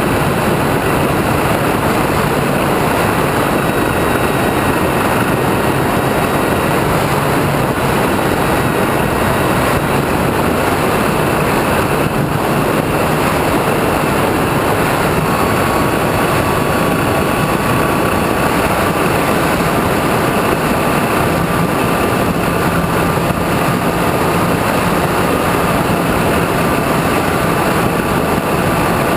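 A radio-controlled model airplane in flight, heard from its onboard camera: a steady rush of wind over the airframe with the motor and propeller running. A thin whine sits over it and changes pitch about halfway through.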